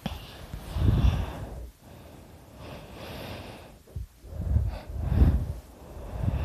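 A man snoring loudly in his sleep: loud, low snores on the in-breath, about a second in and then several close together in the second half, with a softer breathy exhale between them.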